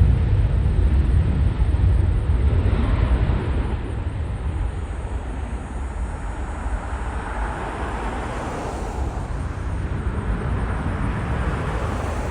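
Boeing 737-900ER airliner's CFM56-7B jet engines at takeoff thrust as it climbs away. A heavy low rumble fades over the first few seconds into a steadier, more distant jet noise.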